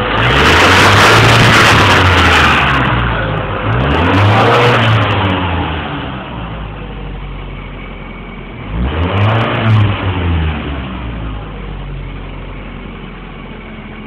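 Ford Mondeo engine being revved and let fall back to idle three times, the pitch swelling up and down with each blip. The owner says the engine is misfiring.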